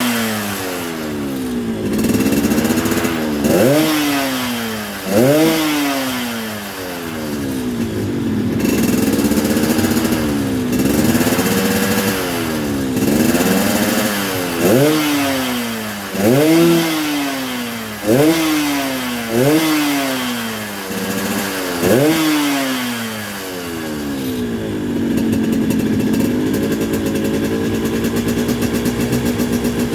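Yamaha RX-King 135 cc two-stroke single-cylinder engine revved about a dozen times, its pitch rising sharply and falling back each time, with the deep 'ngorok' exhaust note of its setup. It settles to a steady idle a few seconds before the end.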